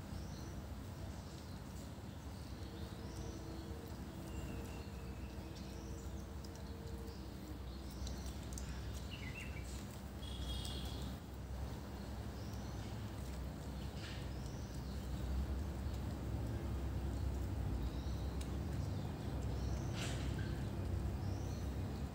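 Outdoor ambience: small birds chirping briefly every few seconds over a steady low rumble that grows somewhat louder in the second half, with a few faint ticks.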